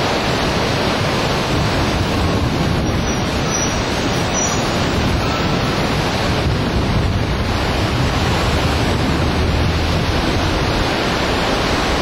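Loud, steady rush of whitewater on a river rapid, with wind buffeting the microphone.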